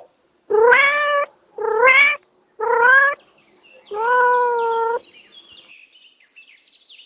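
Domestic cat meowing four times, the last meow the longest and held steady, after which it falls quiet.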